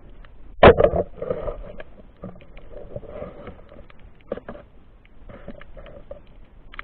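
Muffled sound picked up by an underwater camera during night spearfishing: a sharp knock just under a second in, then a breathy rushing sound that comes back twice more, with scattered small clicks.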